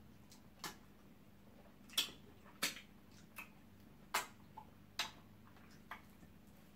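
Wet mouth smacks and finger-licking of people eating eba dipped in slimy okra soup by hand: about half a dozen short, sharp smacks spaced roughly a second apart.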